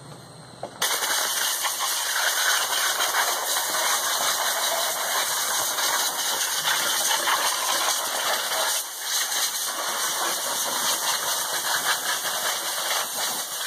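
Compressed-air blow gun blasting dirt off an engine: a loud steady hiss that starts suddenly about a second in, with a brief letup about two-thirds of the way through.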